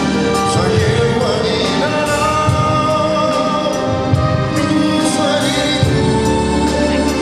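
Live gospel song: a man singing lead, with a choir and a band of drums, bass guitar and keyboards behind him, over a steady beat.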